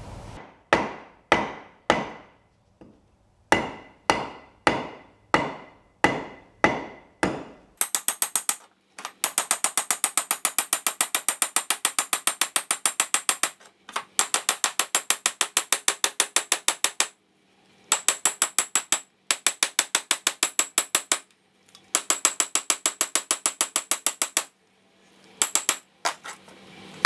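Hammer striking steel, driving pillow block bearings onto a steel tube. It starts as single ringing blows about once a second, then turns into runs of rapid taps, about six a second, with short pauses between runs.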